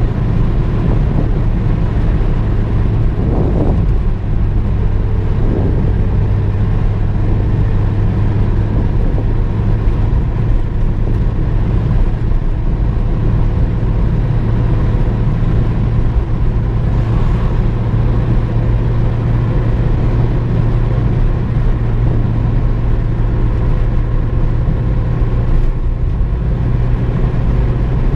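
Car driving at a steady speed: a constant low rumble of engine and road noise that holds level throughout, with no gear changes or revving.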